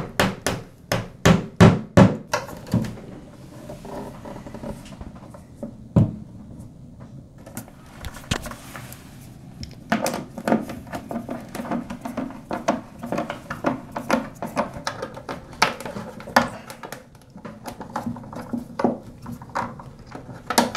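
A hammer tapping plastic wall anchors into the wall: a quick run of about eight strikes at the start, then a single knock about six seconds in. From about ten seconds, a hand screwdriver driving screws through the top of a wall-mounted medicine cabinet, with many irregular small clicks and knocks.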